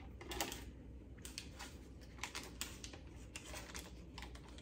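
Dishes and utensils being handled: faint, irregular light taps and clicks.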